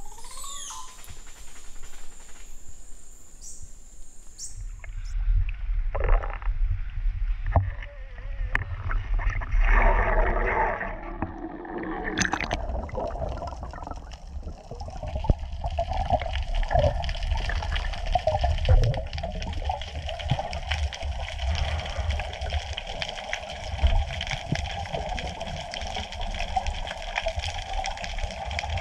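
Muffled underwater sound at a snorkeler's camera: low rumble and sloshing of water, with a louder rush about ten seconds in. From about fifteen seconds on, a steady hum runs under the water noise.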